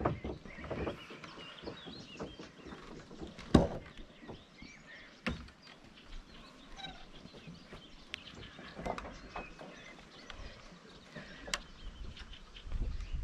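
Footsteps on the wooden planks of a narrow footbridge, with irregular sharp knocks of boards underfoot, the loudest about three and a half seconds in. Birds chirp faintly behind.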